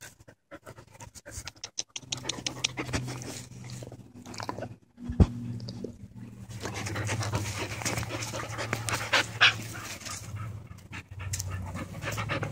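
A six-month-old brindle puppy panting close up, in quick irregular breaths.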